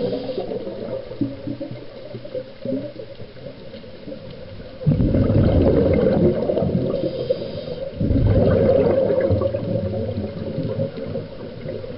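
Water rushing and splashing around a yacht under way, with low wind noise on the microphone. It gets abruptly louder and heavier about five seconds in, and again about eight seconds in.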